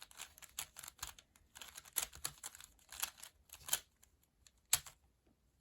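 Plastic clicking and clacking of a ball-shaped 3x3 Rubik's cube being turned quickly by hand during a solve, in quick irregular runs of clicks that stop near the end.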